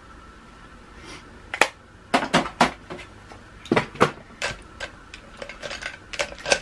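Irregular clicks and light clatter of small hard plastic makeup items being picked through and set down on a hard surface: about a dozen sharp taps, starting about a second in.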